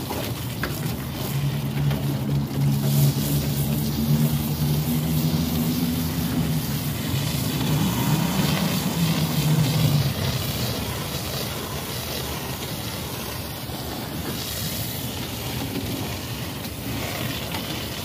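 Water spraying from a hose, a rushing hiss mixed with wind on the microphone, over a steady low machine drone that dies away about ten seconds in.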